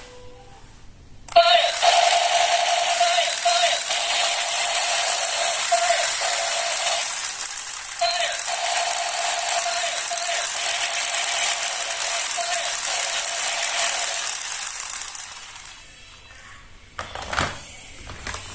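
Battery-powered toy gun firing in a long continuous burst, its mechanism rattling with a steady whine for about fourteen seconds and a brief break about halfway, followed by a few clicks near the end.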